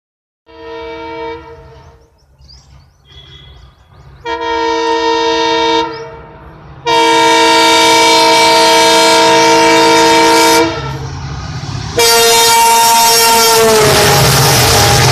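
Multi-tone air horn of a WDG-4 EMD diesel locomotive, sounded four times: two short blasts, then a long one, then a last one that drops in pitch as the locomotive passes. Loud rushing noise and a low rumble of the train running by build up under the last blast.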